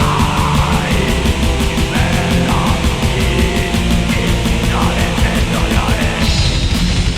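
Orchestral-symphonic black metal recording: dense distorted band music over a fast, even drum beat.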